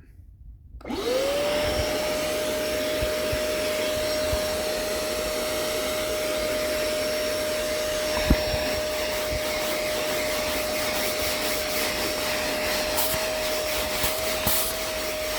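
Hoover CleanSlate spot cleaner's suction motor switching on about a second in, spinning up quickly to a steady whine with a rush of air as it sucks cleaning solution back out of upholstery. One brief knock midway.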